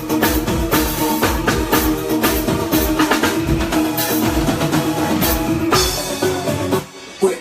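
Live band playing through the sound system, with drum kit and sustained pitched instruments, breaking off abruptly near the end.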